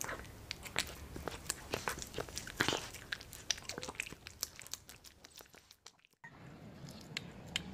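Calico cat eating soup and sausage from a ceramic bowl: wet chewing and mouth noises in quick, irregular clicks. The sound cuts out briefly about six seconds in.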